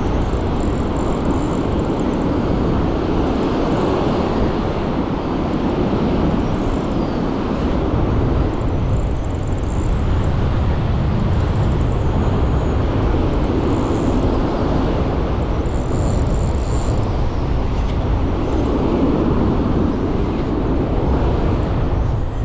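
Steady rush of wind buffeting the microphone mixed with surf washing on the beach, swelling and easing slowly.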